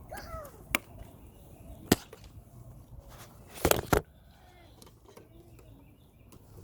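Sharp clicks and snaps of mower parts being handled as a self-propel drive cable is taken out: single snaps about a second and two seconds in, and a louder cluster of snaps a little after three and a half seconds.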